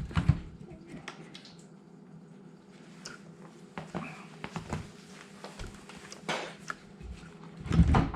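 Scattered clicks, knocks and rattles of dishwasher parts being handled and worked loose by hand, with a louder cluster of knocking near the end.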